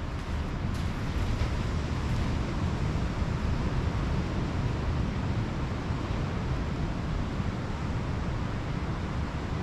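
Pacific surf washing on the beach as a steady rushing noise, swelling slightly in the first couple of seconds, with a low rumble of wind on the microphone.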